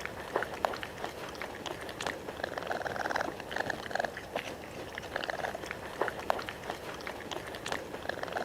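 Raccoon giving a series of short, buzzy, purr-like trills, roughly one a second, with sharp clicks in between.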